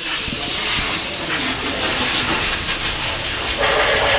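A steady, loud hiss with a low rumble beneath it.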